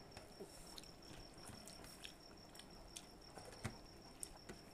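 Faint eating sounds: scattered soft clicks and smacks of chewing and of fingers working rice on steel plates. A steady high cricket trill runs underneath.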